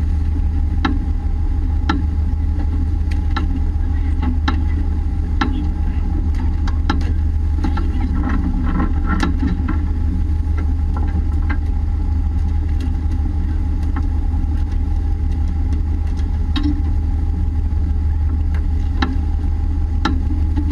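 A fishing boat's engine running steadily, a loud low hum with a steady higher whine above it. Sharp knocks and clatters come now and then, thickest about eight to nine seconds in.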